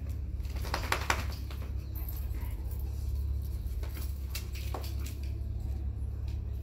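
Metal prong collar links clicking and clinking as the collar is handled and fastened around a dog's neck, a few scattered clicks with the sharpest about a second in, over a steady low hum.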